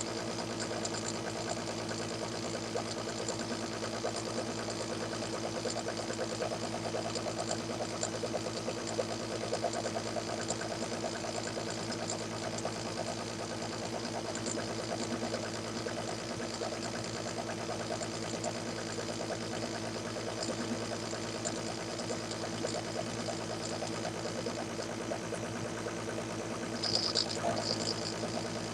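Small metal lathe running under power feed, its motor and feed gearing humming steadily with a fine rapid rattle as it takes a 25-thousandths cut. A brief higher-pitched sound comes near the end.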